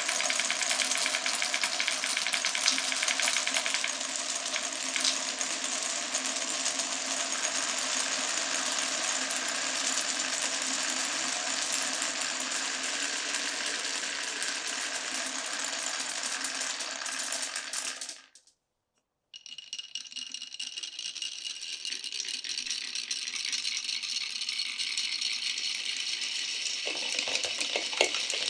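Marbles rolling and clattering along a wooden marble run, a continuous fast rattle of small clicks. It breaks off into a second of silence about two-thirds through, then carries on thinner and higher, with sharper clicks near the end.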